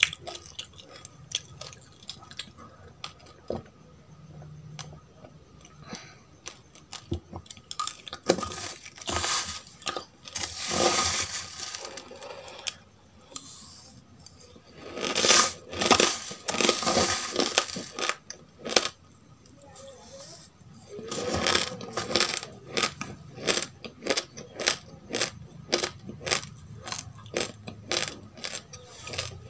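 Close-miked chewing of dry roasted rice: a run of sharp, brittle crunches, about two a second near the end. Two longer, louder stretches of grinding and rustling come about a third and halfway through.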